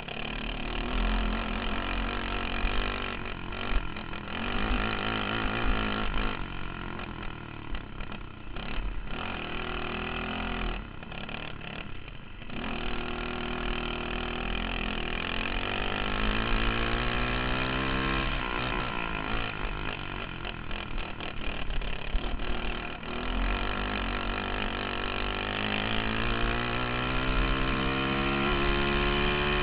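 Dirt kart engine under race throttle, heard close up from on board. The revs climb along the straights and drop away each time the driver lifts for a corner, several times over.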